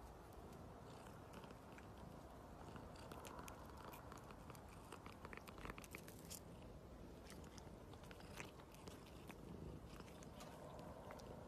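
Long-haired grey cat biting and chewing at fingers held to its mouth: faint, quick mouth and teeth clicks, thickest around the middle and again about eight seconds in.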